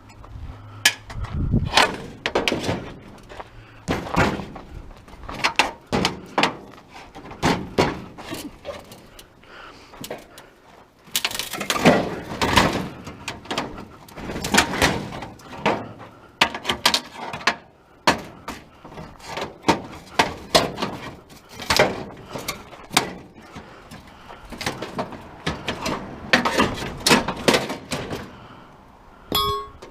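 Repeated, irregular metal clanks and knocks as the sheet-metal body of an old electric coil stove is pried and pulled apart with hand tools, coming in clusters with short pauses between.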